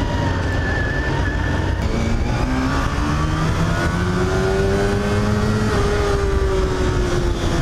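Honda RVF400's V4 engine accelerating hard, its pitch climbing in steps through the first few seconds, then holding a high note that eases off near the end, over road and wind noise.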